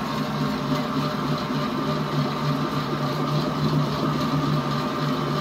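Electric stand mixer running steadily, its motor humming as it whips egg whites into a stiff foam. The machine vibrates on an unsteady table.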